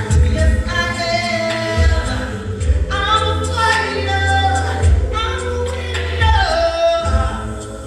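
Gospel singing: voices hold and slide through long notes without clear words, over a steady low bass.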